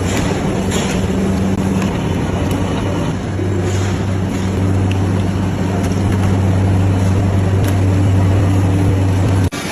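A machine motor running steadily with a low, constant hum over a noisy whir, cut off abruptly near the end.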